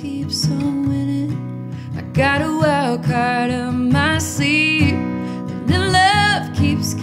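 Woman singing a country song to her own strummed acoustic guitar: steady strumming throughout, with three sung phrases over it starting about two, four and five and a half seconds in.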